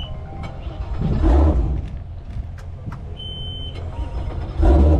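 Low vehicle rumble with a single high electronic beep, about half a second long, just after three seconds in, and two louder low rumbling surges, one about a second in and one near the end.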